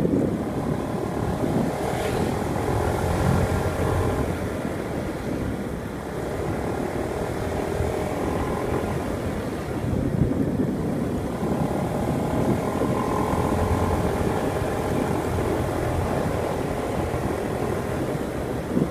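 Motorbike engine running while riding, its note swelling and easing a few times, with wind rumbling on the microphone.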